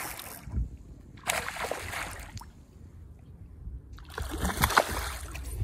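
A hooked carp thrashing at the water's surface, splashing in three bursts of about a second each.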